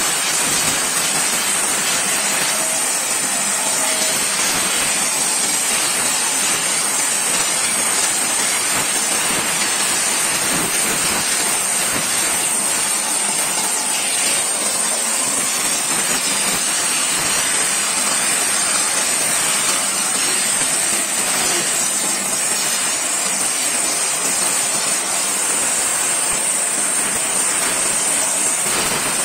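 Hand-held gas torch burning steadily against a stone slab, a continuous hiss with a steady high edge, as the flame sweeps the face to give it a flamed (textured) finish.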